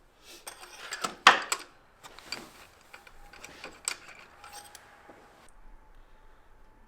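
Metal tools clinking and rattling: a socket wrench and spark-plug socket being worked to loosen a spark plug on a V6 engine. There is one sharp clink about a second in, then lighter scattered ticks that stop well before the end.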